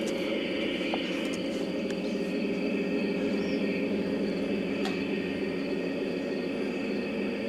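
Insects trilling steadily in a high, unbroken tone over a loud, steady low hum.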